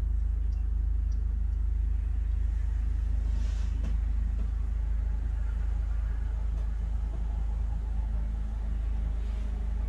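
Steady low rumble with a faint hum over it, with no insect calling heard.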